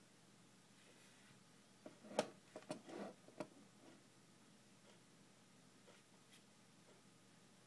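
Near silence, room tone, broken about two seconds in by a quick cluster of about six soft clicks and knocks over a second and a half, the second one the loudest.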